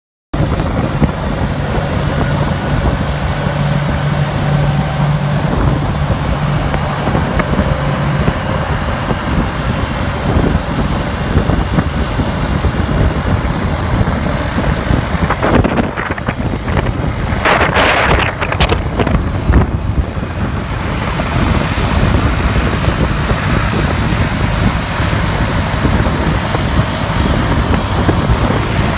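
Wind buffeting the microphone of a phone carried on a moving motorcycle, over engine and road traffic noise. A low steady hum runs through the first several seconds, and a brief louder hiss comes a little past the middle.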